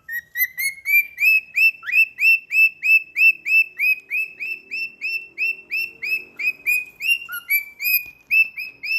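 Cockatiel singing: a fast run of short, repeated whistled chirps, about three a second, each one rising then dropping in pitch.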